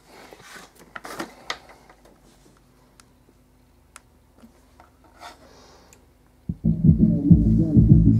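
A few faint clicks and handling noises, then about six and a half seconds in, loud bass-heavy music starts through a Sony Pascal WMS325 subwoofer, with only the low end heard. The subwoofer plays cleanly, with no hum or distortion.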